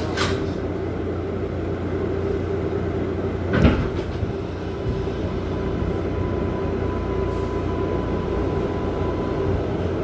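Subway car running, heard from inside: a steady rumble of wheels on track with a faint steady whine, and one sharp clank about three and a half seconds in.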